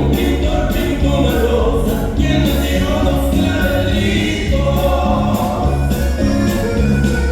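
Loud dance music with several voices singing over a steady, heavy bass, played through a DJ sound system.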